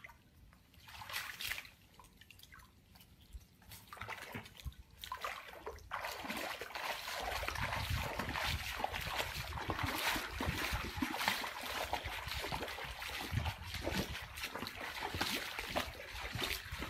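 Water splashing and trickling: scattered splashes at first, becoming a steady, louder wash of water from about six seconds in.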